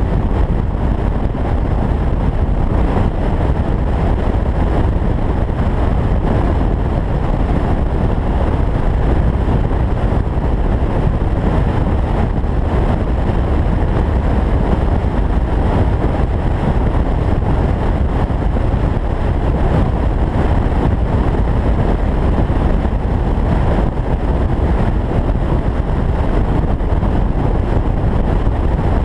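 Steady low rumble of wind buffeting and road noise in an open-top convertible cruising at highway speed.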